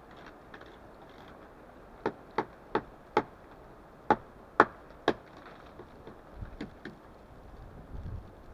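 An axe chopping into wood: four quick sharp chops about two seconds in, then three more, the loudest of them, a second later. A few fainter knocks follow.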